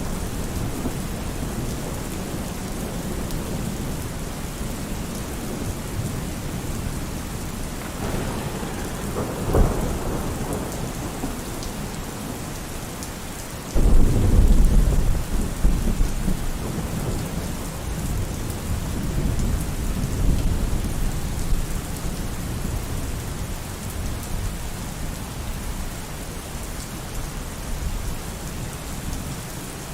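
Steady rain with thunder: a rumble about eight seconds in, then a sudden loud thunderclap about fourteen seconds in that rolls on for several seconds, with more rumbling a few seconds later.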